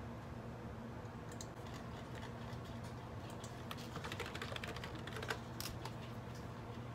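Typing on a computer keyboard: a run of irregular light key clicks, busiest from about one second in until near the end, over a steady low hum.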